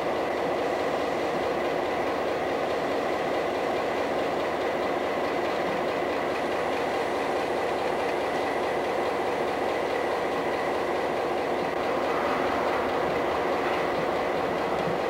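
CSX GP16 diesel locomotive running at close range, its engine a steady, even drone with a faint high whine above it.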